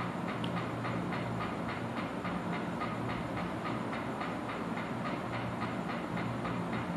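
Steady mechanical rumble and hum with a fast, even ticking, about five ticks a second.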